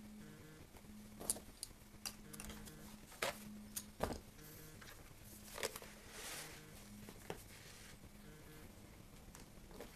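Hand-sewing a leather welt onto a shoe: thread being drawn through the leather and pulled tight, heard as scattered clicks and rustles with a longer swish of drawn thread a little past the middle.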